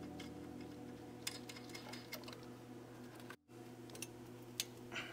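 Faint, scattered metallic clicks and ticks from hand work on fittings beneath the car, over a steady low hum.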